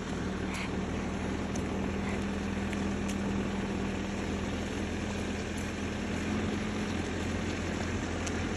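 Backhoe's engine running steadily, an even hum with a held low tone.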